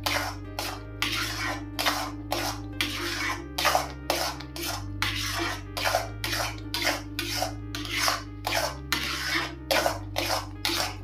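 Spatula scraping rhythmically through thickening semolina halwa in a kadhai, about three strokes a second, over soft background music.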